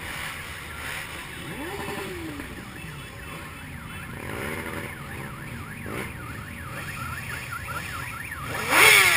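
Motorcycles rumbling along at walking pace, with an engine revving up and back down about two seconds in. From about five seconds in a siren yelps, its pitch sweeping rapidly up and down, and a loud burst of noise comes near the end.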